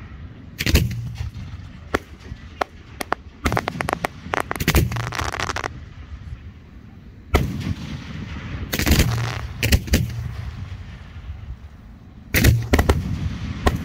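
Aerial fireworks going off: a series of loud bangs a second or more apart, with runs of rapid crackling pops about four seconds in and again about nine seconds in.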